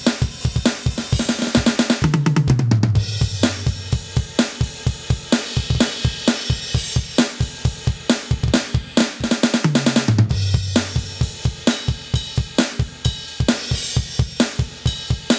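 Aroma TDX-25 electronic drum kit played through its 'K3 Hard Rock' kit sound: a driving rock beat with rapid bass drum strokes, snare and cymbals. Tom fills falling in pitch come about two seconds in and again about ten seconds in.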